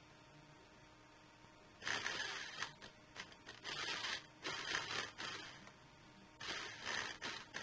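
Toy RC car's small electric drive motor whirring in short stop-start bursts, starting about two seconds in, as a wire is touched to the circuit board's first forward pin: the jerky forward drive.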